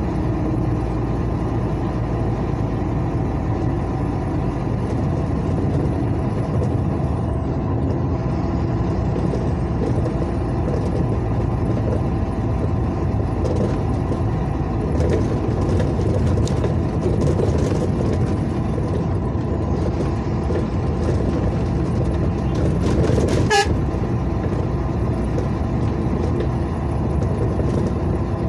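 Steady road and engine noise of a vehicle driving at speed on a highway, heard from inside. About three-quarters of the way through comes one brief sharp sound, the loudest moment.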